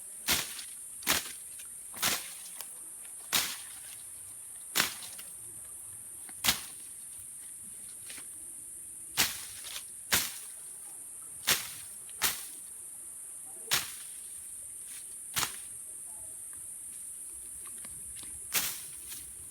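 A bolo (machete) slashing through grass in sharp swishing strokes, about thirteen of them, roughly a second apart with a few longer pauses. Insects keep up a steady high drone underneath.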